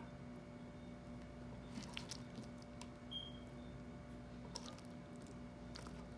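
Pieces of roast chicken being moved onto the serving dish: faint soft squishing with a few short, light knocks and scrapes.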